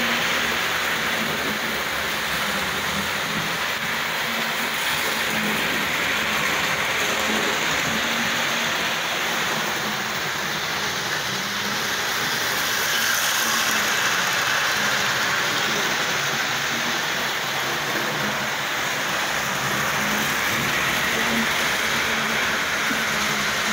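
Electric model trains running on a model railway layout: a steady rolling and running noise with a faint low hum.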